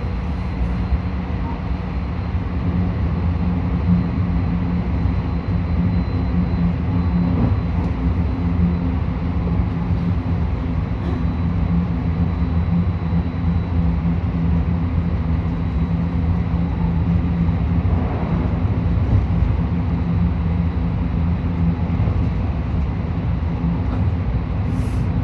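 JR West 223 series electric train running at a steady speed, heard from inside the carriage: a continuous rumble of wheels on rail with an even motor hum.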